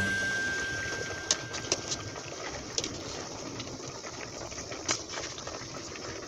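Water boiling in an aluminium pot of leafy greens and carrots, a steady bubbling hiss, with a few light clicks of a metal spoon against the pot as the vegetables are stirred.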